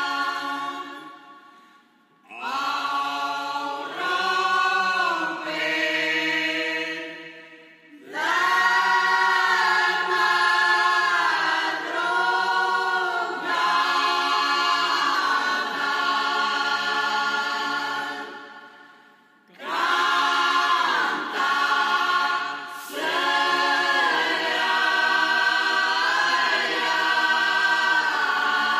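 A Portuguese folk singing group of women and men singing unaccompanied in long, held phrases, with three short breaks between phrases.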